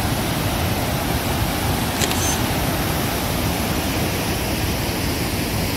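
Steady roar of a large river waterfall, about 14 m high and 50 m wide, its rushing water heard close by as an even noise across all pitches.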